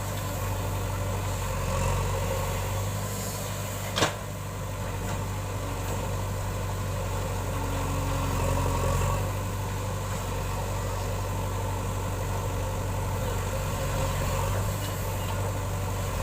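Diesel engine of heavy earthmoving machinery running steadily at a low, even pace, with a single sharp knock about four seconds in.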